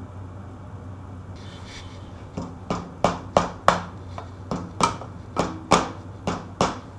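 Crankcase breather cap on a 1944 Briggs & Stratton Model B engine being tapped down with a small hammer. It starts with a little rubbing, then about a dozen sharp taps come at roughly three a second, starting a little over two seconds in, seating the cap snugly.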